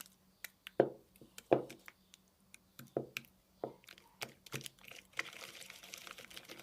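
Sticky homemade black slime being squeezed and pulled in the hands, giving a string of sharp pops and clicks, the loudest two near the start. A steady rustling hiss sets in near the end. The slime is still sticking to the hands.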